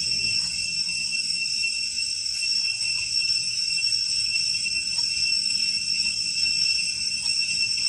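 Steady, high-pitched insect chorus droning on without a break, with a faint low rumble beneath it.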